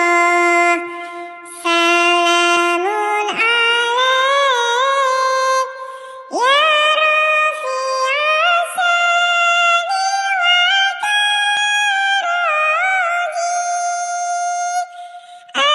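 Synthetic, high-pitched singing voice in the style of a sholawat, the Islamic devotional chant. It holds long notes decorated with quick melismatic turns, with a few short breaks between phrases.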